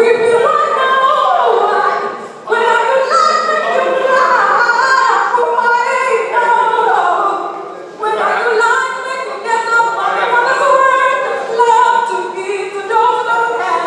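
Singing in sustained, stepping melodic phrases, with brief pauses about two and a half and eight seconds in.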